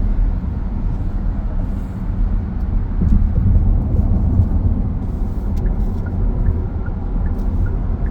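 Steady low rumble of road and engine noise inside a car cruising on a freeway.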